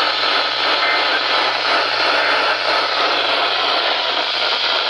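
Radio receiver static: a steady hiss with a low hum beneath it, no station coming through.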